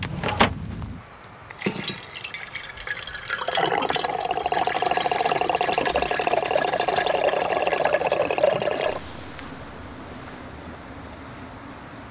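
Water running from the tap of a plastic water jerry can into a metal mug, filling it for several seconds before the tap is shut off suddenly. A sharp knock comes about half a second in.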